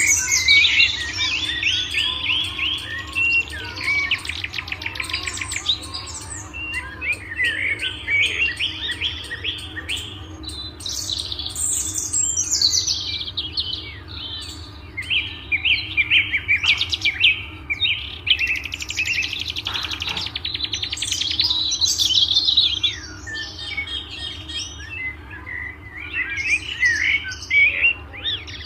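Many small birds chirping and twittering together, their calls overlapping with no break, with spells of fast trilling chatter about four seconds in and again around twenty seconds in.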